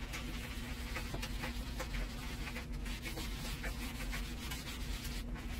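Scrubbing pad worked back and forth over a countertop coated in wet cleanser, a run of irregular scrubbing strokes. A faint steady hum lies underneath.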